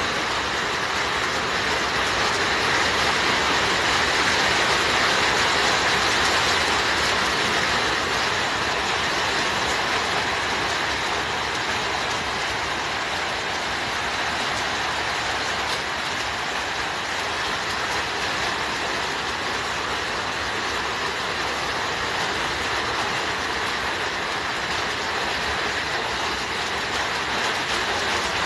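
Heavy rain pouring down, a steady even hiss with no breaks.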